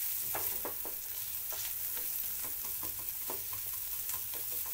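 Onion, tomato and spice tadka frying in oil in a non-stick pan with a steady sizzle, while a silicone spatula stirs and scrapes through it in quick, irregular strokes.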